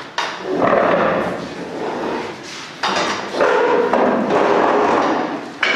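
Bustle of a group of people getting up and moving around tables: knocks, scraping and handling noise in dense, uneven stretches.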